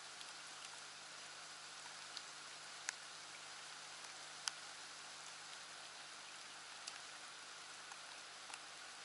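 Steady rain falling, a faint even hiss, with a few sharp ticks of single drops landing close by; the loudest come about three and four and a half seconds in.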